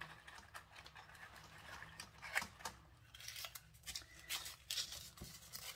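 Faint rustling of paper and light clicks as a small cardboard gift box is handled and opened and its tissue-paper wrapping pulled out.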